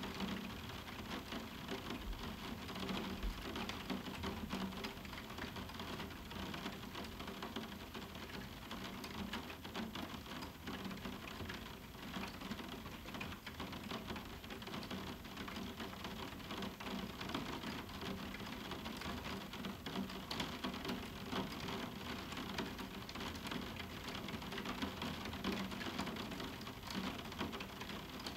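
Moderate summer rain falling on a roof window: a steady, dense patter of drops on the glass, with no thunder.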